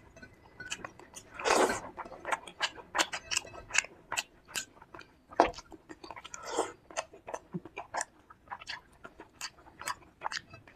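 Close-miked ASMR eating: a person chewing a meal of fish curry, fried fish, rice and salad, with many quick wet mouth clicks and two longer, louder crunchy bites about one and a half and six and a half seconds in.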